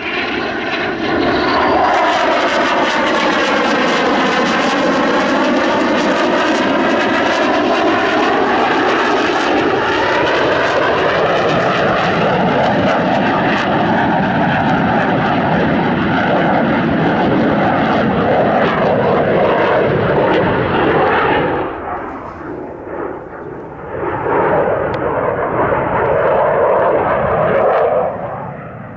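Eurofighter Typhoon's twin EJ200 turbofan engines: loud, continuous jet noise as the fighter manoeuvres close by, its tone sweeping up and down as it passes. After about twenty seconds it drops to a duller, more distant rumble, swells again for a few seconds, then fades near the end.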